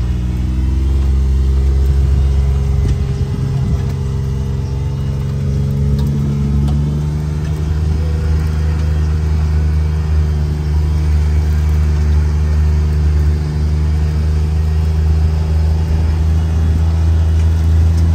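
Vehicle engine running steadily while driving, its pitch drifting slightly over the first several seconds and then holding even.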